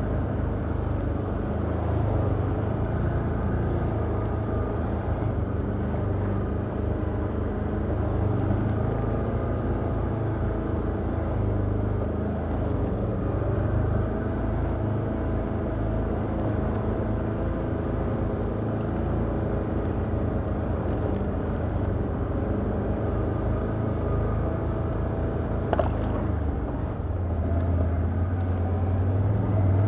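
Can-Am Outlander ATV engine running steadily at a low, crawling pace in four-wheel-drive low range, its pitch drifting up and down a little with the throttle.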